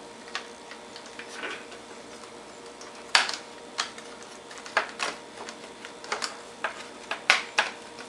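Circuit board of an Akai MPK Mini being handled and pressed down into its plastic case: irregular sharp clicks and taps of board and plastic, the louder ones coming in the second half.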